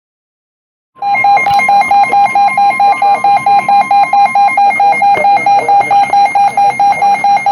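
Weather radio alert alarm beeping rapidly, about four to five beeps a second, starting about a second in: the alert for a severe thunderstorm warning. A fainter steady tone sounds underneath for the first few seconds.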